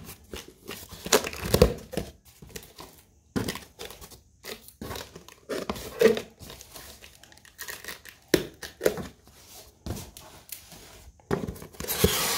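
Corrugated cardboard box being opened by hand: packing tape slit and torn, with irregular scrapes, taps and crinkles of cardboard. Near the end comes a louder, longer scraping as the top flaps are pulled apart.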